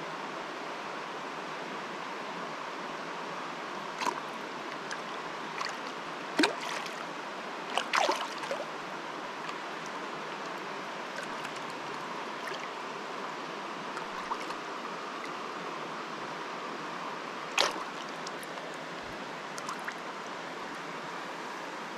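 Steady rush of river water flowing over rocks in shallow pocket water. Several brief splashes and knocks stand out, the sharpest about six, eight and eighteen seconds in, as a trout is handled in a landing net at the water's surface.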